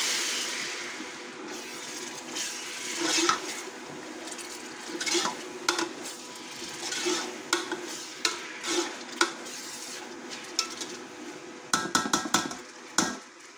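A metal spoon scraping and knocking against an aluminium pot while stirring tomatoes and green chillies into hot oil, with a faint frying sizzle underneath. A quick run of sharp clinks comes near the end.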